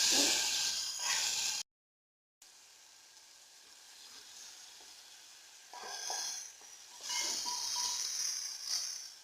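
Food sizzling in a hot cooking pot, a steady hiss that cuts off suddenly about a second and a half in. After a short gap, fainter sizzling returns and swells up twice.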